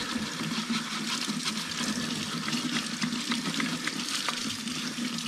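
Tap water running over a plastic dishwasher filter while it is scrubbed with a toothbrush: a steady splashing with many small scratchy clicks, cleaning off fatty buildup.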